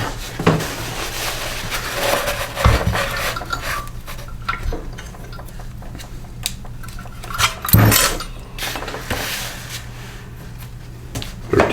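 Metal hand tools and engine parts clinking and clattering on a workbench, with scattered knocks, the loudest about eight seconds in.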